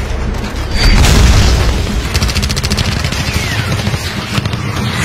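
Battle sound effects from a show soundtrack: a deep explosion boom about a second in, followed by a rapid burst of machine-gun fire, and another boom at the very end.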